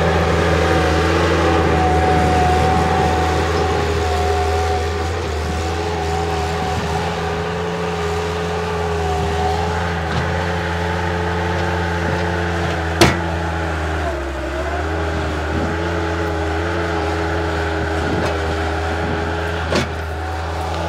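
Bobcat 763 skid-steer loader's diesel engine running steadily under load while digging a ditch, with a whine whose pitch sags briefly about two-thirds through as the machine is loaded. Two sharp knocks, one about two-thirds through and one near the end.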